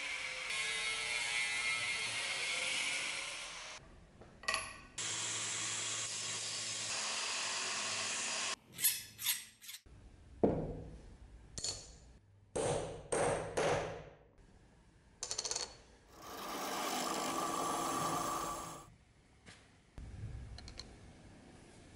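Angle grinder cutting a brass plate, running steadily for about four seconds. Then a string of shop-tool noise follows: another steady spell, a run of short separate bursts, and a few seconds of steady noise, ending quieter.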